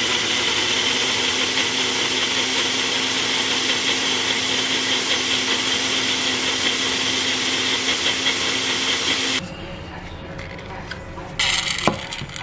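Ninja blender motor running steadily with a constant hum, blending pancake batter in its single-serve cup, then switching off about nine seconds in. Near the end, a brief plastic scrape and a click as the blade assembly is twisted off the cup.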